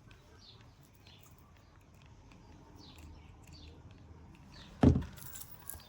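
Faint short bird chirps repeating about twice a second, with small clicks from jump rings and pliers being handled. A single sharp knock about five seconds in.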